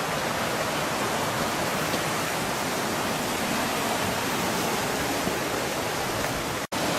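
Steady rush of a mountain stream's cascading water. The sound cuts out for an instant near the end.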